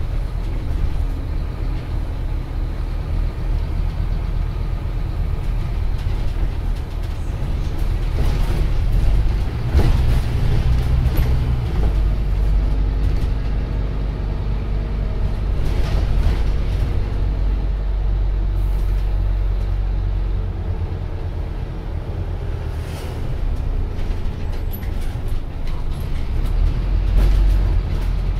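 Cabin sound of a Scania OmniCity single-deck bus on the move: the Scania 9-litre five-cylinder diesel running under a steady road rumble, its note shifting as the bus speeds up and slows, with a few short hisses along the way.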